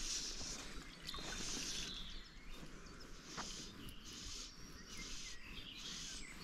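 Birds singing in short, repeated high phrases over a steady low outdoor wash, with a couple of faint clicks.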